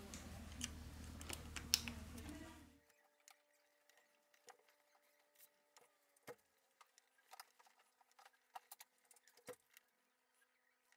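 Faint small clicks and taps of a phone's plastic loudspeaker module being pressed into its frame and screwed down with a small screwdriver. A low steady hum sits under the first few clicks and cuts off suddenly about three seconds in. After that it is near silence with scattered soft clicks.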